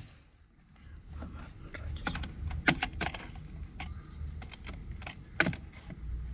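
Pneumatic coil nailer driving nails into wooden form strips: sharp clacks, loudest about two and a half seconds in and again near five and a half, with lighter clicks between.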